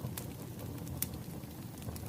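Wood fire crackling: a steady low rumble of burning logs with scattered sharp pops, the loudest about a second in.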